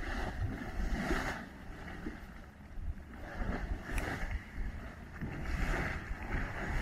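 Red Spouter mud pot's steam vent hissing in irregular surges, with a low wind rumble on the microphone.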